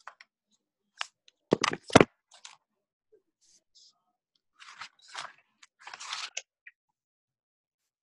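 Handling noises close to a microphone: a quick cluster of sharp knocks and bumps about a second in, then a few seconds of scattered rustling.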